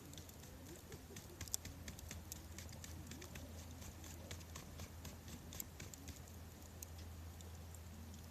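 Wood campfire crackling: irregular small pops and snaps, a couple of sharper ones, over a faint steady low hum.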